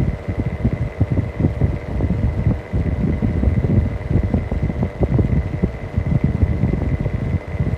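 Mistral exhaust fan running on a bad bearing: a rapid, uneven low knocking and rattling under a steady high whine.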